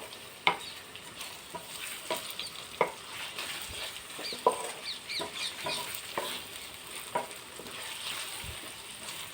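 Onions, carrots and ginger-garlic paste sizzling in oil in a kadai while a spoon stirs them, knocking and scraping against the pan at irregular moments. This is the sauté stage, cooking until the raw smell is gone and the oil separates.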